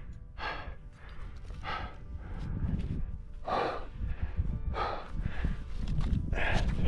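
A climber breathing hard from exertion: loud, noisy breaths every second or two, over a low rumble of wind on the microphone.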